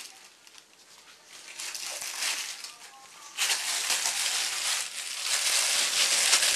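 Thin plastic carrier bag rustling and crinkling as a cat squirms about inside it. Faint at first, louder after about a second and a half, and loudest from about halfway through.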